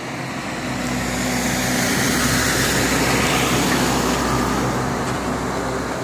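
A road vehicle driving past close by, its engine and tyre noise rising to a peak about halfway through and then fading.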